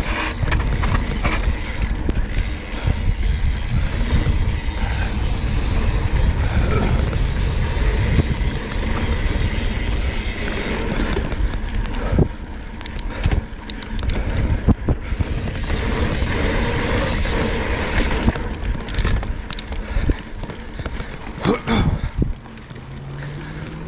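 Wind rumbling on the camera microphone and mountain-bike tyres (Maxxis Ikons) rolling over hard-pack dirt with loose dirt on top during a descent. About twelve seconds in, the rumble eases and sharp clicks and knocks of the bike rattling over the ground take over.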